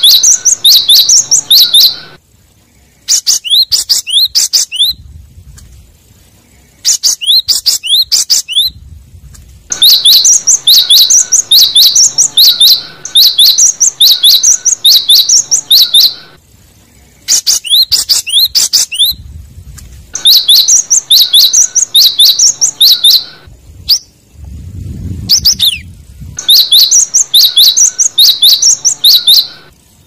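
Gelatik batu (cinereous tit) singing as a lure call: loud bouts of fast repeated high chirping notes, each note sweeping down, a few seconds long with short pauses between bouts.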